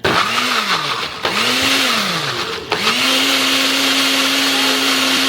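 Electric blender blending banana and cream into a cold foam: the motor is pulsed twice, its pitch rising and falling each time, then runs steadily from about three seconds in.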